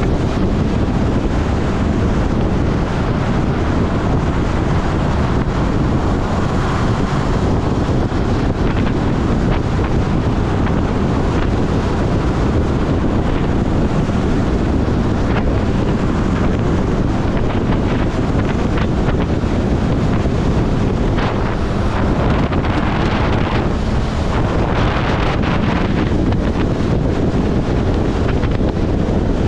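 Heavy, steady wind noise on the microphone of a moving motorcycle, with the Honda CB400SF Super Four's inline-four engine running beneath it.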